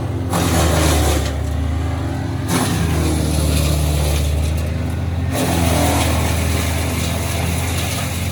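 TP 215 mobile wood chipper running, its engine holding a steady drone while wood is fed through and chipped. The chipping noise comes in long stretches, with two short lulls about a second in and about four and a half seconds in.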